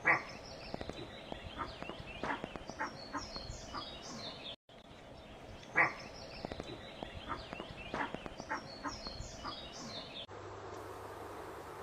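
Roe deer barking: one short bark at the start and another about six seconds in, with small birds chirping and scattered faint clicks between.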